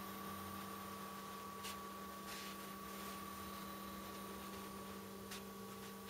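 Supermicro 743TQ-865B-SQ tower server running with its side panel off: a quiet, steady humming from its cooling fans, with a few faint ticks.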